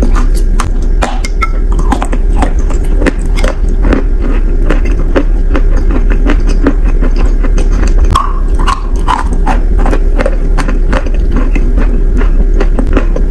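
Close-miked chewing of wet, creamy chalk: a steady run of many small crisp crunches over a thick wet mouth noise.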